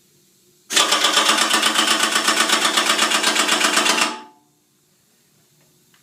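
Florida Pneumatic FP-745TCI torque-controlled pneumatic impact wrench hammering against a torque tester at its first torque setting. It starts suddenly with a fast, even rattle of blows, runs for about three and a half seconds, then stops.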